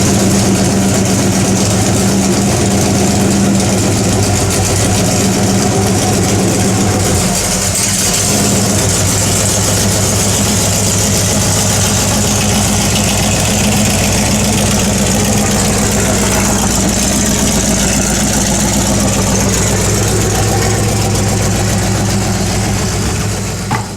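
A car engine idling steadily, its note shifting lower about seven seconds in.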